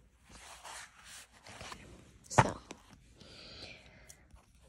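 Paper rustling as a textbook and a notebook are handled, with one sharp knock about two and a half seconds in.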